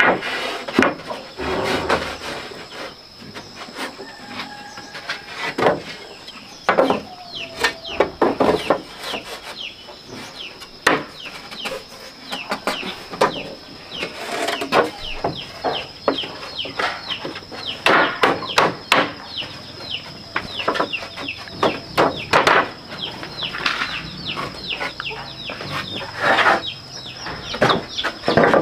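Chickens peeping and clucking in many short falling chirps, over irregular sharp knocks and taps on wood. A steady high whine runs underneath.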